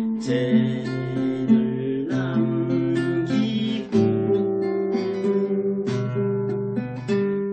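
Classical guitar played by a beginner: plucked and strummed chords ringing on, with the chord changing every second or two.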